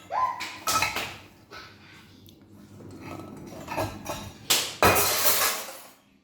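Dishes and cutlery clinking and clattering as they are handled in and lifted out of a dishwasher rack after a wash cycle, a few separate knocks early on and a louder run of clatter about four and a half seconds in.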